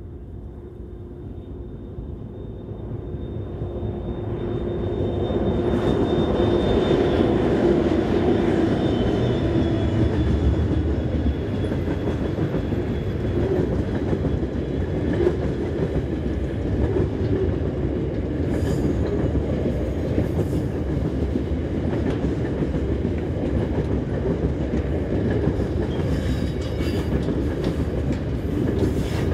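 Diesel-hauled freight train approaching, its locomotives growing louder over the first several seconds. The wagons then roll past with a steady rumble and the clatter of wheels over the track.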